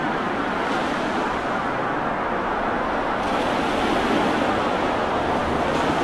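Sea waves and surf: a steady wash of water noise, becoming a little brighter and louder about halfway through.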